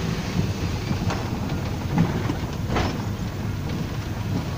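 Inside a moving car's cabin: steady low engine and road rumble, with a few brief bumps and knocks.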